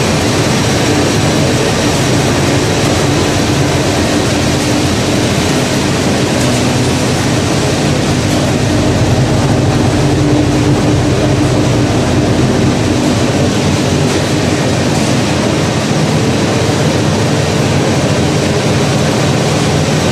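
Peanut oil press machine running steadily while pressing peanuts, a loud, even mechanical din with a low steady hum.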